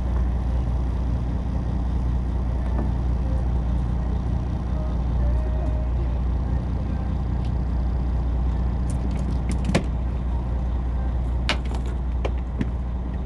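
Boat engine running steadily with a low rumble. A few sharp clicks and knocks come about nine to ten seconds in and again near the end.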